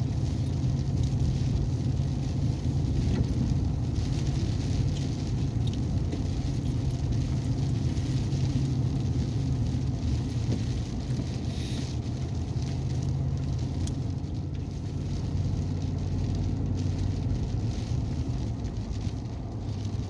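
Steady engine hum and tyre rumble of a four-wheel-drive pickup driving on a snow-covered dirt road, heard from inside the cab, with scattered light ticks from the road surface.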